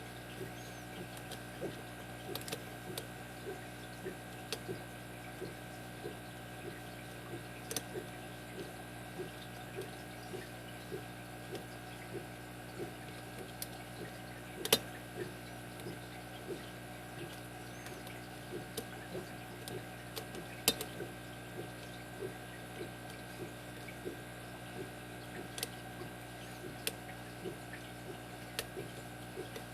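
Small clicks and ticks of a lock pick working the pin tumblers of a brass padlock against tension, with a few sharper clicks standing out, over a steady hum.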